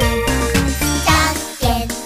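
Background music with a bright melody over a bass and a steady beat, about two beats a second.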